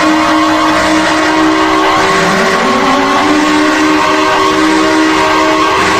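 Emergency warning siren winding up and holding its pitch, over and over: a rise about two seconds in and another near the end. Steady alarm tones and a harsh hiss run underneath.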